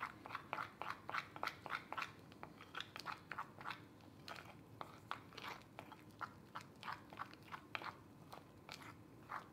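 A spoon stirring thick icing in a small glass bowl, sticky scrapes and clicks against the glass about three to four times a second, mixing in blue food colouring.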